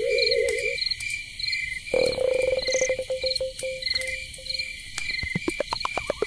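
Eerie electronic sound design: a wavering synthetic tone, then a single ringing note about two seconds in that fades away, over evenly repeating cricket-like chirps; near the end a run of quick pitched blips sliding up and down.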